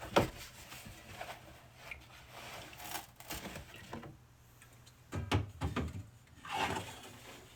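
Soda cans being set into a fridge shelf: a sharp knock at the start, then scraping as cans slide into rows, with a cluster of knocks and clinks about five seconds in and again near the end.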